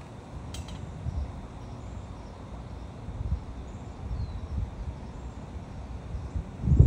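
Wind buffeting the microphone in uneven gusts, with faint bird chirps in the background.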